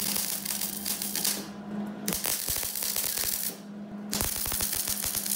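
MIG welder arc crackling as tack welds are laid on the joint of a stainless steel exhaust pipe, in three stretches with short breaks between them. A steady hum runs underneath.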